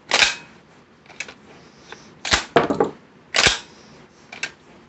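Citadel PAT 12-gauge pump shotgun being racked by hand with live shells: a series of sharp clacks as the slide is worked back and forward and a shell is ejected and drops onto the bench. The action cycles without a double feed.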